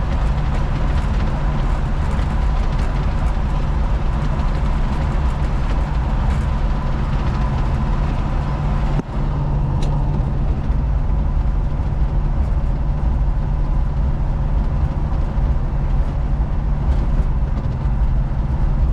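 Inside the cab of a 1973 Chevrolet C20 pickup cruising at about 45 mph: steady engine drone with road and wind noise, the cab freshly lined with Kilmat sound-deadening mat. The noise dips briefly about nine seconds in.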